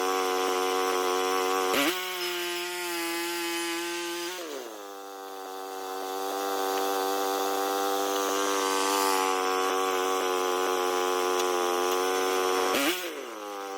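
Small sawmill running and sawing through a log, its motor giving a steady pitched note that shifts a few times and drops sharply near the end.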